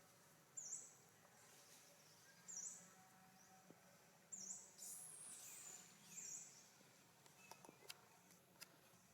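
Four short, high-pitched chirps about two seconds apart, from a small animal or bird, with a brief hiss about five seconds in and a few faint clicks near the end.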